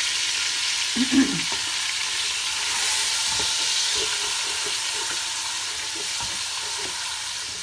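Chicken cubes sizzling steadily in hot oil in a pan as they are stirred, with light scrapes and taps of the utensil against the pan and a louder knock about a second in.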